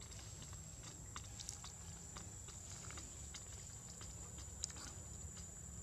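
Faint, irregular small clicks and crunches of a monkey chewing food, with one sharper click a little before the end, over a steady high-pitched tone.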